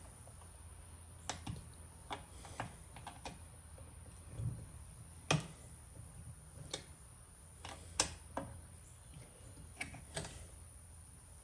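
Irregular light clicks and taps of small metal parts and hand tools being handled while a side-mirror clamp is fitted together, the sharpest about five and eight seconds in, over a steady low hum.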